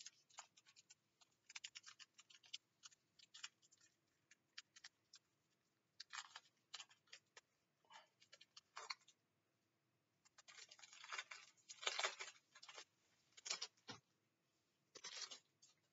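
Faint crinkling and rustling of a Match Attax foil card pack being torn open and the cards handled, in scattered short bursts that are busiest a little past the middle.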